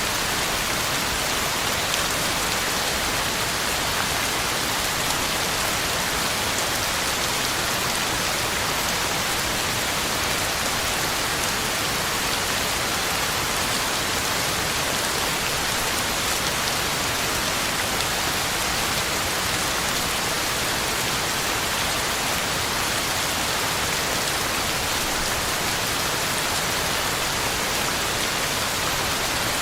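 Heavy rain falling steadily, a dense even hiss of drops hitting the ground and leaves, with no let-up.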